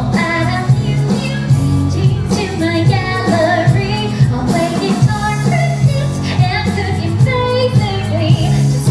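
A stage musical number: a woman singing a show tune over a full band backing with a steady bass beat.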